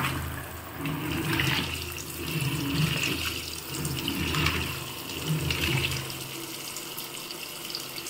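T80SJBK1Z top-load washing machine's jet spray pouring a stream of water into the tub, fed by tap pressure alone with no pump. Under it the wash churns the clothes in low, uneven pulses that die down about six seconds in.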